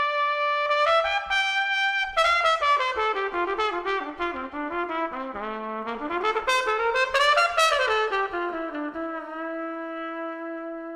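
Closing music: a single melodic instrument plays held notes, then quick runs of notes falling and rising, and settles about three-quarters of the way in on a long held low note that slowly fades.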